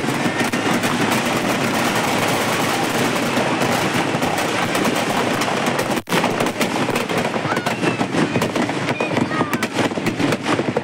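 Firecrackers packed inside a burning Ravan effigy going off in a dense, rapid crackle of pops, with crowd voices underneath. The sound breaks off for an instant about six seconds in, then the crackling carries on.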